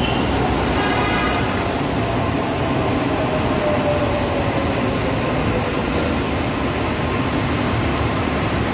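Mumbai Metro Line 7 driverless train slowing to a stop at the platform: a steady rumble with a faint whine that falls slowly in pitch over about five seconds.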